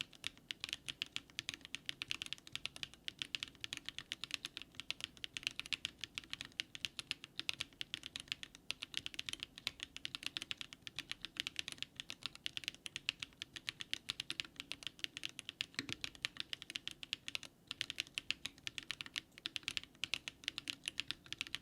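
Continuous fast typing on a DARING RUN DR-70F mechanical keyboard fitted with SW x HMX Catmint switches: a dense, uneven stream of crisp key clicks, each with a low thock.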